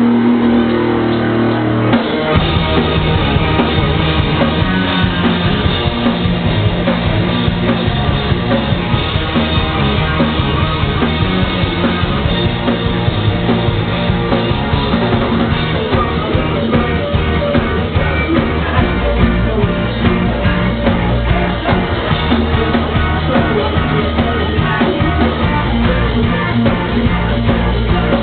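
Live rock band playing loud, with electric guitar, bass guitar, drum kit and singing. The sound turns fuller, with heavier bass and drums, about two seconds in.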